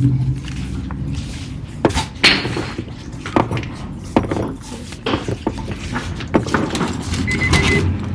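Scattered knocks, taps and handling clatter from several people working with objects on tabletops, mixed together through video-call microphones, with a short high beep near the end.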